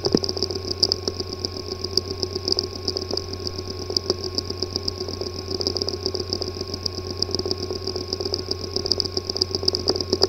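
A failing hard disk drive clicking fast and evenly over a steady hum, the symptom of physical damage inside its disk assembly.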